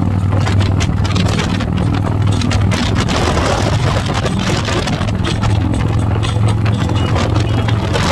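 Touring motorcycle's engine running steadily at cruising speed, heard from on the bike, with wind buffeting the microphone.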